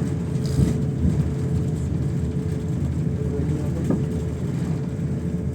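Airliner cabin noise: a steady low rumble from the jet engines and airflow, with a constant hum running through it, heard from inside the passenger cabin.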